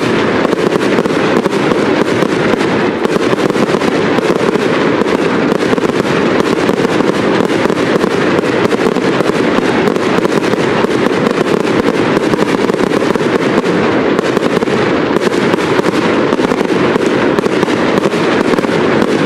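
Aerial fireworks display going off in a dense, unbroken barrage: many shell bursts and crackles overlap with no pauses between them.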